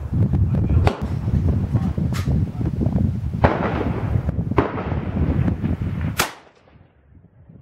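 Strong wind buffeting the microphone, with several sharp cracks spaced roughly a second apart. Just after six seconds in, the wind noise drops away suddenly.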